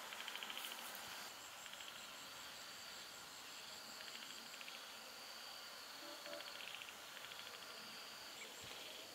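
Night insects such as crickets chirping: a steady high drone with short bursts of rapid pulsed chirps every couple of seconds, faint overall.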